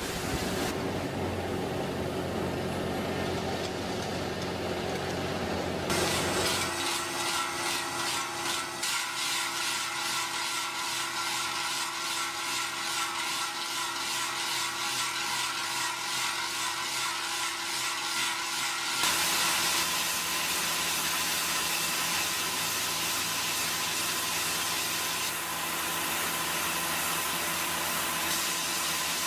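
Machinery running, in three stretches that change abruptly about six and nineteen seconds in; the middle stretch carries steady whining tones over a rapid, regular pulsing.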